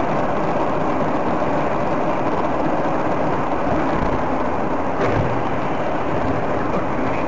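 Steady road and wind noise from a moving car, picked up by a dashcam microphone.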